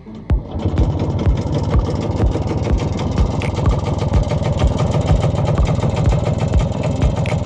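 Muravey motor scooter's two-stroke single-cylinder engine running steadily at idle on a carburettor taken from a Ural chainsaw, coming in about a third of a second in. Low thumps about twice a second run underneath it.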